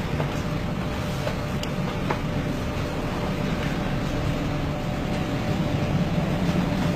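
Steady low rumbling roar of storm wind and heavy seas around a container ship as its bow ploughs through big breaking waves, with a few faint ticks.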